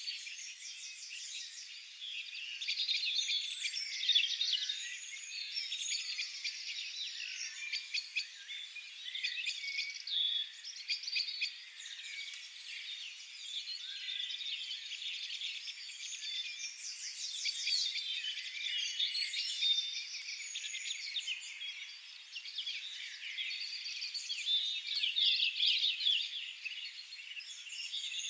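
Several songbirds singing at once in a continuous chorus of overlapping chirps and fast trills.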